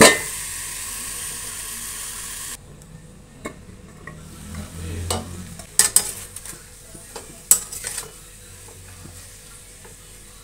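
A steel lid clanks against a steel kadhai over cauliflower and tomatoes sizzling in oil. The sizzle cuts off suddenly after a couple of seconds. A metal spatula then stirs the sabzi, scraping and clinking against the kadhai several times.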